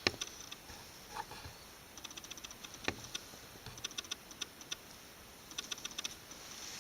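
Faint, sharp clicks and ticks coming in quick clusters, with one sharper knock about three seconds in.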